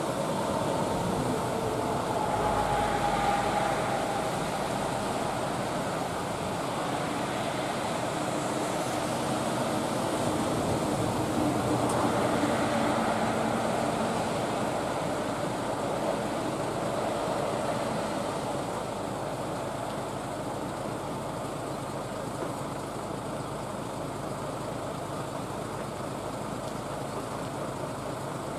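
Road traffic on a rain-wet road: a steady hiss that swells as vehicles pass, about three seconds in and again around twelve seconds, over a low steady engine hum.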